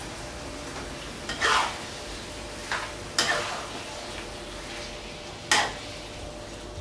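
Chicken rendang sizzling in a wok while a spatula stirs and scrapes it. There are a few separate scraping strokes over a steady sizzle.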